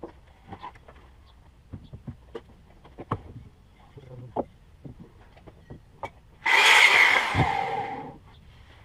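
Freshly sawn wooden planks knocking and clattering as they are handled and stacked, a scatter of short wooden knocks. About six and a half seconds in, a loud hiss-like noise lasts for a second and a half, then stops.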